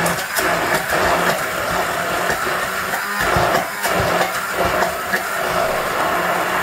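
Electric immersion (stick) blender running in a plastic jug, blending mayonnaise and avocado filling into a creamy sauce: a steady motor hum with churning that shifts a little as the blender is worked.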